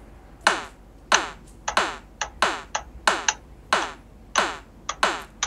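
Synthesized kick drum from the Propellerhead Figure phone app playing a steady looping pattern about every 0.6 s. Each hit starts with a sharp click and falls in pitch, and shorter, lighter hits sit between some of them. The kick pad is held down, so the pattern repeats continuously while it is recorded into the loop.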